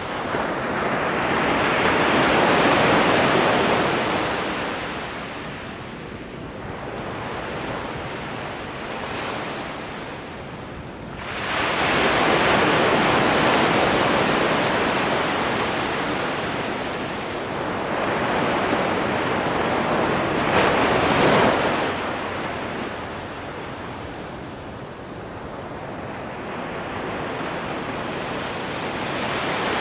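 Ocean surf on a sandy beach: waves breaking and washing up the shore in slow surges that swell and fade every several seconds. One comes in sharply about eleven seconds in, and the loudest brief crash is about twenty-one seconds in.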